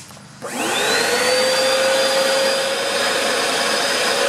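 Bissell PowerForce Helix upright vacuum cleaner switched on about half a second in: the motor whine rises in pitch as it spins up, then settles into a loud, steady run. There is no suction at the floor nozzle and the brush roll is not turning.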